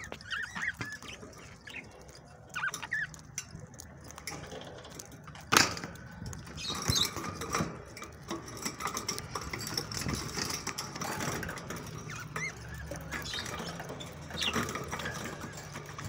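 Budgerigars chattering in short scattered chirps while feeding at a seed tray, with soft ticks of pecking and a sharp knock about five and a half seconds in.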